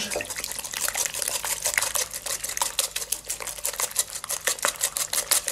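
Wire whisk beating eggs and sugar in a glass bowl. The whisk's wires click against the glass in a quick, even rhythm.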